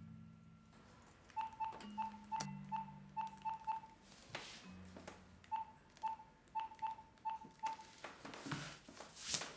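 Mobile phone keypad beeps: a run of short beeps all on one pitch, about four a second, then a pause and a second run. A brief louder noise comes near the end.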